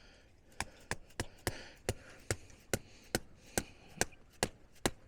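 Hammer blows struck in a steady rhythm, about a dozen at roughly two and a half a second, starting about half a second in.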